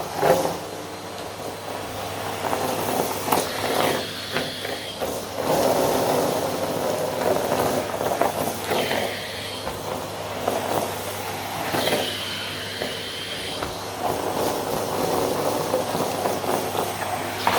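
Vacuum cleaner running on carpet, its steady motor hum overlaid with surges of suction as the head is pushed back and forth, and a high whistle that comes and goes several times.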